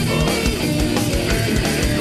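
Black metal band playing: distorted electric guitars over rapid, steady bass-drum beats, heard as a 1990s demo recording.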